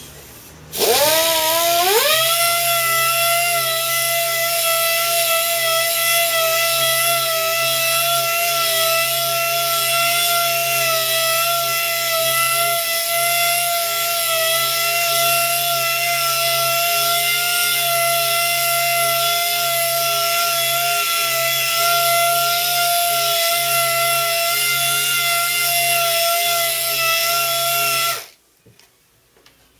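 Small right-angle pneumatic polisher with a foam pad, buffing compound into fresh paint as the first compounding step after wet sanding. It spins up with a rising whine about a second in, runs at a steady high whine over a hiss, and cuts off suddenly near the end.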